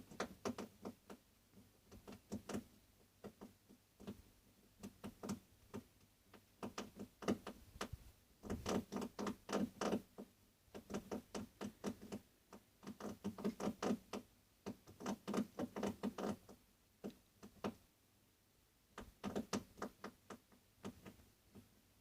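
Runs of rapid sharp clicks or knocks, several a second, coming in bouts of a few seconds with short pauses between them: a strange noise heard in a garden at night.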